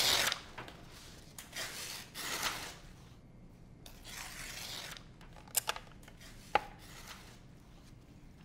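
Sheets of stiff paper rustling and flapping as they are handled. Past the middle come a few sharp, light clicks or taps: two close together and one a second later.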